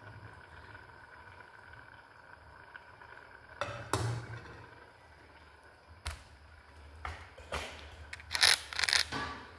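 Quiet kitchen handling sounds: a few light knocks and scrapes, then several short, louder rustling swishes near the end.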